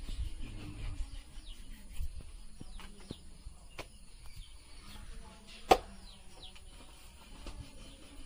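Birds chirping in scattered short, falling calls. A single sharp knock a little past halfway is the loudest sound.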